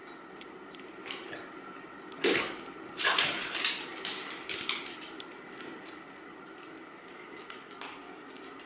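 Two dogs playing on a hardwood floor, their claws clicking and skittering on the wood: a short burst of scuffling about two seconds in, then a longer one of about two seconds starting about a second later.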